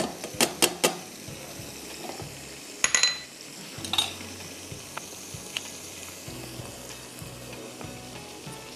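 Crushed garlic sizzling gently in oil in a non-stick frying pan. Kitchenware clinks against the pan: three sharp clicks in the first second, then a ringing clink about three seconds in and another about a second later.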